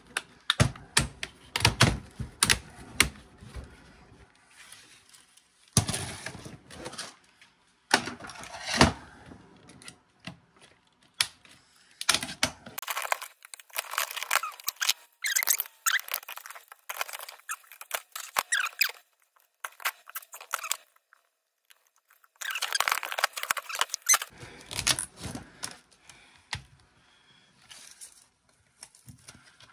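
Plastic laptop screen housing being pried and broken apart by hand: irregular bursts of snapping, cracking and clicking plastic, with small parts rattling.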